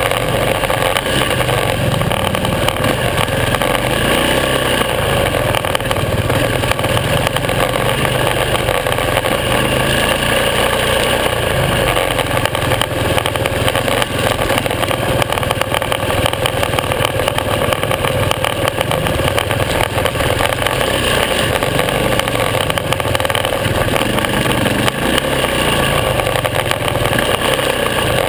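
Supermoto motorcycle engine running steadily under way, a loud, even drone without clear revving.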